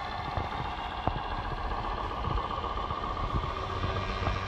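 Tamiya 1/14 RC Mack Titan truck, built from a Knight Hauler kit, driving slowly with a loaded lowboy trailer: a steady whine over a low hum, with a few sharp clicks.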